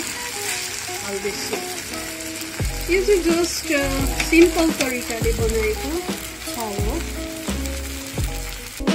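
Noodles sizzling as they are stir-fried and tossed in an iron wok with a spatula and fork. Background music with a melody runs over it, and a low pulsing beat comes in under a third of the way through.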